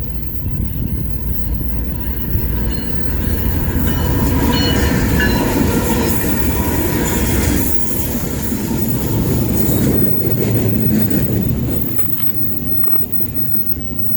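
A train passing close by: a loud, steady rumble of wheels on rail, with a few brief high wheel squeals about four to five seconds in, easing off somewhat near the end.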